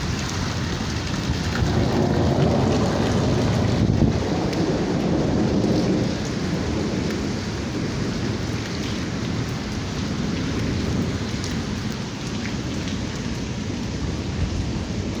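Heavy rain pouring steadily, with a low rumble of thunder that swells about two seconds in and fades by about six seconds.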